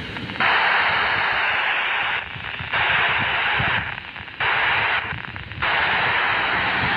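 FM receiver hiss from a Polmar DB-4 handheld radio's speaker, coming in four bursts that cut in and out with short quieter gaps. It is the squelch opening and closing on a weak, fading signal while the radio listens for the ISS amateur radio repeater's downlink.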